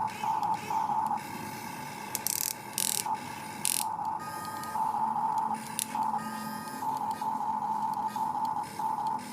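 Small electric motors of an RC excavator whining in repeated starts and stops as its controls are worked. A few short hissing bursts come between about two and four seconds in.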